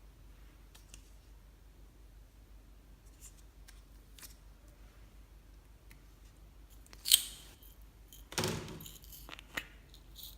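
Quiet handling noises: scattered faint ticks, then a sharp loud click about seven seconds in, a short rustling, squishy burst a second later, and one more click near the end.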